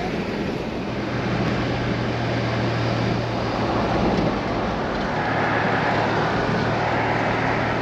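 Car driving, heard from inside the cabin: steady road and engine noise, with a low hum that sets in about a second in and holds steady.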